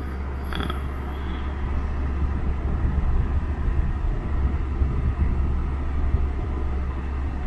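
Portable mini fan running: a steady low hum and rush of air that swells and wavers in the middle, with a short electronic beep about half a second in.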